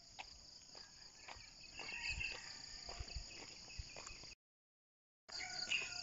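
Steady high chirring of insects in the roadside grass, with scattered soft clicks and thumps of footsteps and handling. The sound cuts out completely for about a second near the end, then returns.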